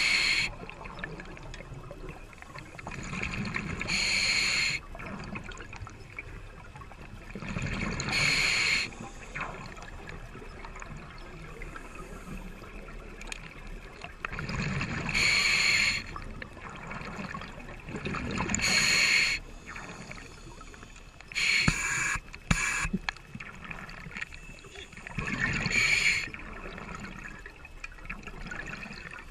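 Scuba diver breathing underwater through an open-circuit regulator. Each breath is a low rush followed by a loud burst of exhaust bubbles, repeating every few seconds.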